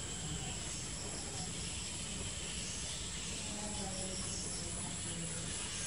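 Outdoor background with a continuous high-pitched insect drone, like crickets, and faint distant voices now and then.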